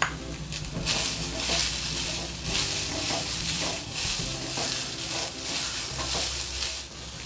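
Chopped onion dry-roasting in a hot steel kadhai, hissing as it is stirred and turned over with a slotted spatula that scrapes across the pan, starting about a second in.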